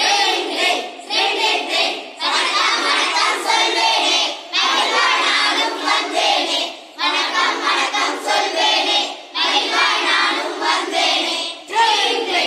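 A group of children singing together, in repeated short phrases with brief breaks between them.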